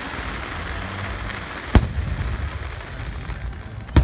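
Aerial fireworks shells bursting: two sharp bangs about two seconds apart, the second near the end, over a steady low rumble.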